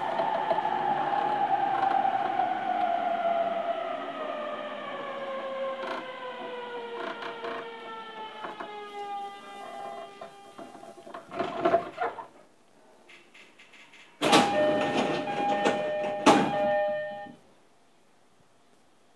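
Traction inverter and motor whine of an E231-series electric train with renewed traction equipment, heard from the floor of the motor car, gliding steadily down in pitch and fading as the train brakes to a stop at a station. Around twelve seconds in comes a short burst of hiss. A couple of seconds later there are about three seconds of louder noise with two steady tones, which ends abruptly.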